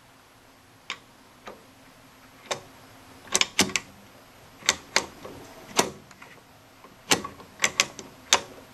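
Band switch of an EF Johnson Ranger II tube transmitter being turned through its detented positions: about a dozen sharp clicks at irregular intervals, some in quick pairs. The switch, formerly seized, now turns smoothly and freely.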